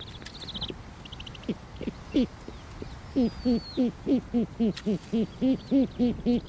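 Snowy owls calling at the nest: high, thin, falling calls, then from about three seconds in a fast, even run of low hooting notes, about four a second.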